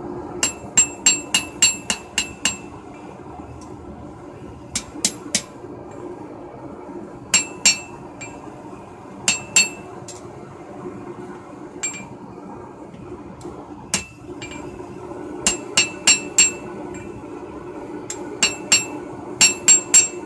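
Blacksmith's hand hammer forging a red-hot knife blank on an anvil: runs of quick ringing blows, from a single strike to about seven in a row, with pauses between runs. A steady low drone sits under the blows.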